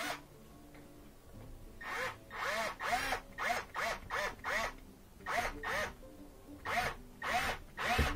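Cordless drill/driver pulsed in short bursts while driving a mounting screw through the dishwasher's side bracket into the cabinet. Starting about two seconds in, there are about two brief whirs a second, each rising and falling in pitch.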